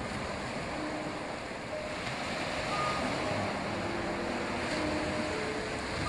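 Ocean surf washing onto a sandy beach: a steady rush of breaking waves, with a few faint held tones over it.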